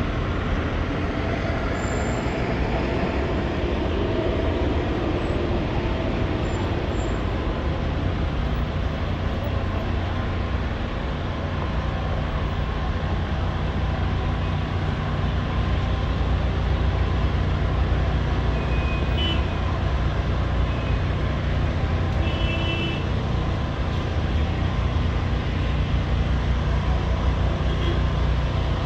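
City street traffic: a steady rumble of passing vehicles, with a couple of short high tones around the middle.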